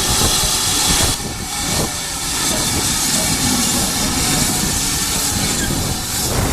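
Steam locomotive hissing steam steadily, loudest in the first second, over a low rumble.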